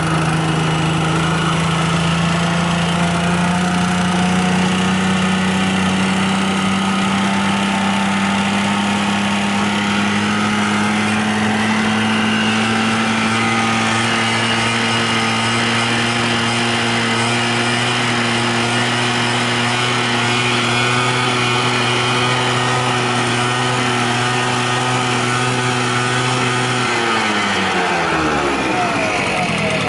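Honda Squash AB11 moped's small four-stroke single-cylinder engine running steadily at a raised speed, rising slightly at first; its revs drop off about 27 seconds in and pick up again near the end. The engine is presented as running with no abnormal noises.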